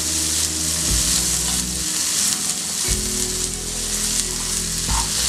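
Chopped onions, crushed garlic and mustard seeds frying in hot oil in a steel kadai: a steady sizzle.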